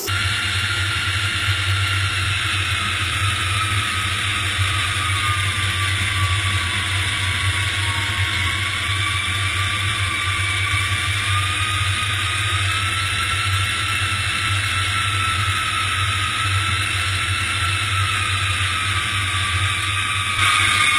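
Aeroplane jet engines running with a steady low drone and a whine that slowly wavers in pitch.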